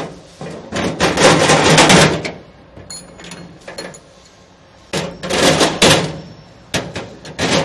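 Metal rattling and scraping as carriage bolts are dropped through the mounting plate into the toolbox's holes, in three clattering bursts of about a second each.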